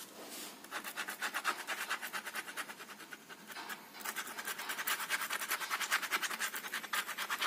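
Ballpoint pen scratching on carpet in quick back-and-forth hatching strokes, several a second, with a short pause about halfway through.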